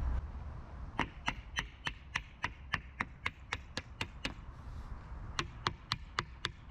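Hammer tapping quickly on the top edge of a flat chrysotile-cement sheet standing on edge: a steady run of about a dozen sharp taps, a short pause, then five more.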